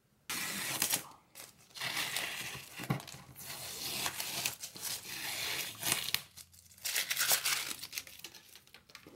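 Green painter's tape being peeled off the edges of a sheet of watercolour paper, a ripping, crinkling sound in several long pulls with short pauses between.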